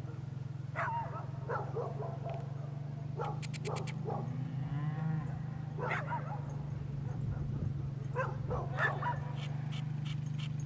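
A herd of cows and calves lowing and bawling: scattered short calls, with one longer moo about midway. A steady low hum runs underneath.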